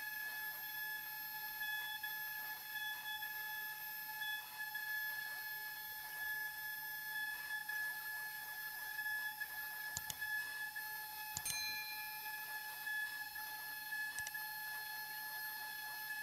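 CNC 3018 Pro desktop router engraving plywood: its small spindle motor gives a steady high whine, with the faint patter of the bit cutting as the gantry moves. A couple of faint ticks come about two-thirds through.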